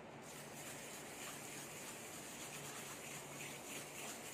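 Faint rubbing and scratching of a tissue dusted with vibhuti ash over the brass surface of a prayer lamp, a polishing step that first turns the metal white.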